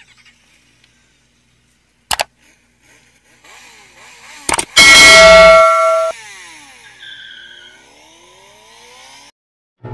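Sound effects for an animated subscribe button: a short click about two seconds in, another click, then a loud bell ding that rings for about a second. Faint sweeping whooshes follow.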